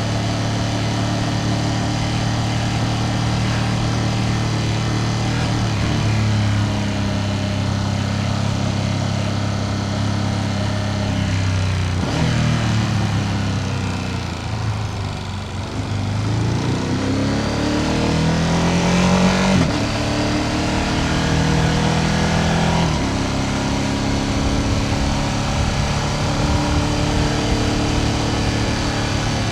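Ducati Panigale V2S's V-twin engine running as the bike is ridden. The note steadies, drops off about twelve seconds in, then climbs under acceleration to a sharp upshift just before twenty seconds, with another gear change a few seconds later.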